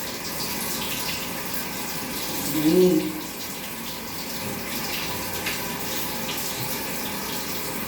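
Bath water running steadily from a tap during a cat's bath. About two and a half seconds in, one short cry with a rising then falling pitch.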